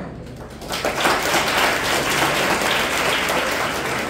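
Audience applauding. The clapping starts just under a second in and stays steady.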